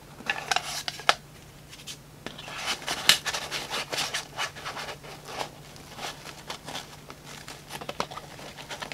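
A Mora fixed-blade knife in its plastic sheath scraping and rubbing against the pack's nylon fabric and shock cord as it is worked into the sleeve. A few sharp clicks come in the first second, then a longer stretch of irregular scratching.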